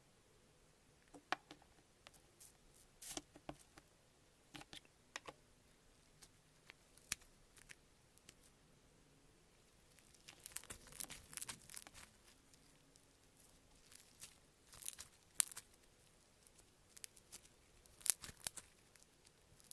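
Slime being pressed and squeezed by hand, giving faint scattered crackles and small pops that come thickest about halfway through.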